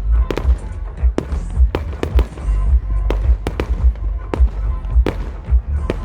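Fireworks display going off in a rapid series of sharp bangs, two or three a second, over a continuous low rumble.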